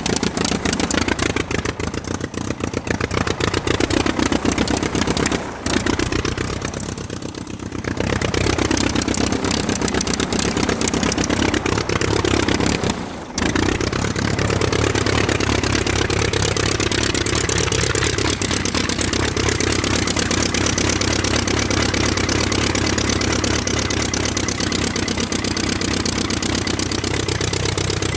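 An engine running with a fast, even pulse, its pitch rising and falling. It breaks off briefly about five seconds in and again about thirteen seconds in.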